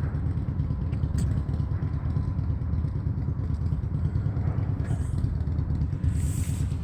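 Steady low rumble of wind and water against the microphone while wading in the water, with a few short splashes. The loudest splash comes about six seconds in.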